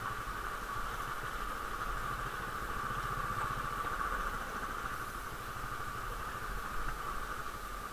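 Vehicle engine running at low speed, a steady low rumble with a steady hiss over it that is the loudest part.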